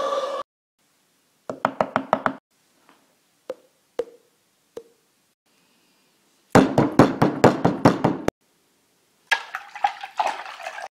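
Sharp knocks in bursts: a quick run of about eight a second and a half in, three single knocks, then a louder, faster run of about a dozen knocks around seven seconds, and a rougher, noisier run near the end. A held pitched tone cuts off half a second in.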